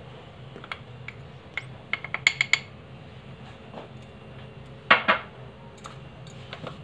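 Metal spoon clinking against glass bowls while cornflour is spooned into a bowl of flour: a quick run of light clinks about two seconds in, and a louder clink about five seconds in.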